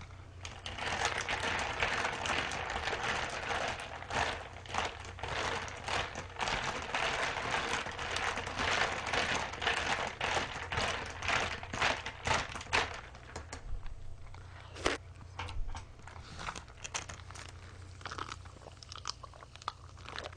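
Carbonated water fizzing and crackling in a glass of ice as hongcho is mixed in. The fizz thins out about two-thirds of the way through into scattered small ticks and clicks.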